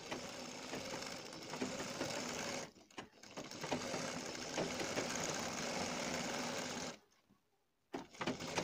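Sewing machine stitching a seam through cloth, running steadily in three stretches with a brief stop about three seconds in and a longer one about seven seconds in.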